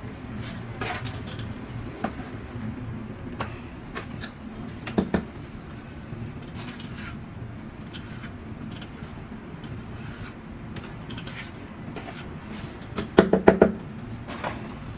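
Hand trowel scraping and dabbing wet cement mortar onto a wall around pipes, with scattered short scrapes and clicks. A quick run of sharp knocks near the end is the loudest sound.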